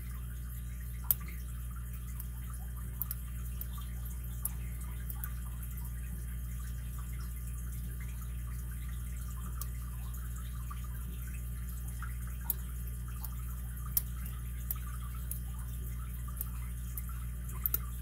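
Sparse, irregular small metallic clicks of a pick and tension wrench working the pin tumblers in the keyway of a solid-brass Hercules 800 five-pin padlock, with the sharpest clicks about a second in and near 14 seconds. A steady low hum runs underneath.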